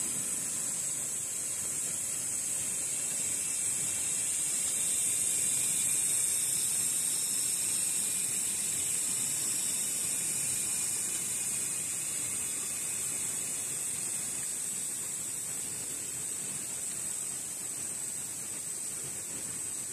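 Steady high-pitched insect chorus, a continuous shrill hiss from the surrounding vegetation.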